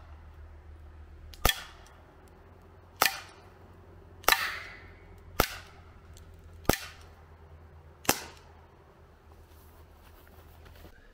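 Umarex UX Tornado CO2 BB revolver firing steel BBs: six sharp shots, roughly one every second and a half.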